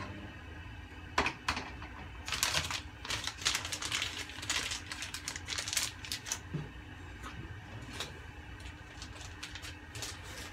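A gas hob burner running with a low steady hum under a simmering pot, with a flurry of irregular light clicks and taps for a few seconds near the middle.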